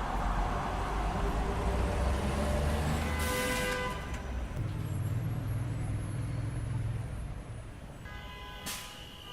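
City street traffic: vehicle engines rumbling past, with a car horn sounding briefly about three seconds in and short pitched tones again near the end as the traffic fades.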